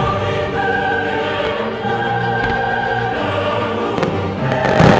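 Choral music with sustained held voices, and a firework shell bursting with a loud bang near the end.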